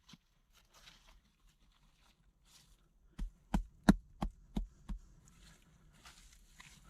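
Six sharp knocks in quick succession, about three a second, the third the loudest, with faint rustling around them.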